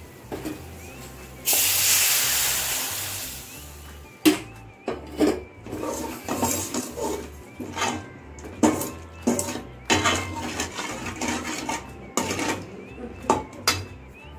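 Water poured onto hot oil and spices in a metal pan sets off a loud sizzling hiss about a second and a half in, which fades over about two seconds. After that, a perforated metal skimmer clinks and scrapes against the pan in irregular knocks while it stirs the liquid.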